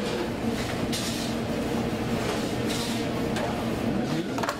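Steady low mechanical hum of kitchen equipment, with soft rustling from gloved hands rubbing dry rub into a rack of ribs, strongest about a second in and again near three seconds.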